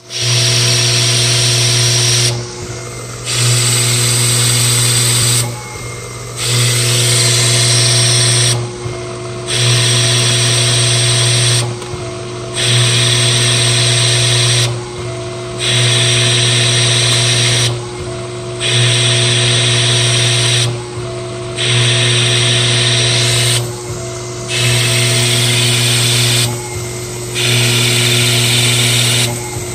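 DIY CNC lathe cutting metal bar stock: a steady machine whine under a loud cutting hiss. The hiss drops away briefly about every three seconds, in a regular repeating cycle.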